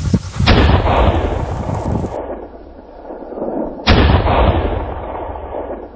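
Two shotgun shots about three and a half seconds apart, each followed by a long fading tail. They are fired at a flushed pheasant: the first knocks feathers off it, the second brings it down.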